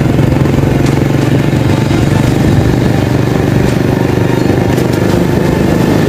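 Motorcycle engine running at a steady cruise, heard from on board while riding.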